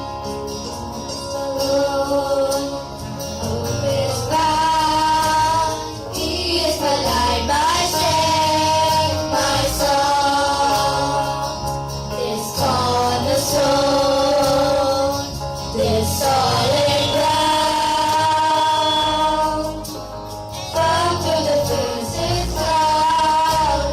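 Christian gospel song with singing voices, female voices prominent, over instrumental accompaniment with a steady beat; the sung phrases hold long notes and break every few seconds.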